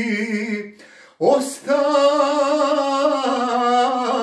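A man singing unaccompanied, holding a long note with vibrato that ends under a second in. After a short breath he slides up into another long held note.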